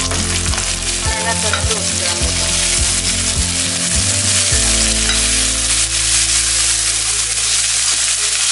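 Mixed vegetables sizzling as they stir-fry in hot oil in a stainless-steel wok (kadhai), turned by a steel ladle that scrapes and knocks against the pan, the knocks coming about twice a second for the first half.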